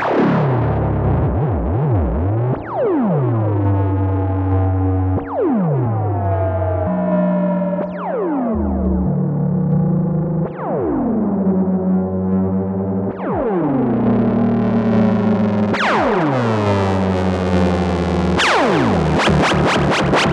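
Novation Bass Station 2 analogue synthesizer through a tape-echo effect, playing a drone of swooping notes. Every two to three seconds a bright tone sweeps sharply down in pitch and settles into a low held bass note. Near the end a rapid, bright pulsing sets in, from the envelope looping under the retrigger function.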